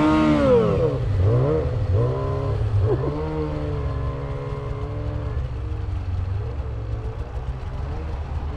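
Snowmobile engines revving, their pitch rising and falling several times in the first three seconds, then running steadier and gradually quieter as the sleds ride away across the snow. A low, steady engine drone continues underneath.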